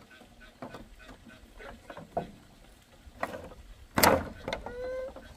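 Hammer knocking and prying at nails in old weathered wooden planks: a few light knocks, then one sharp, loud knock about four seconds in, followed by a short squeal.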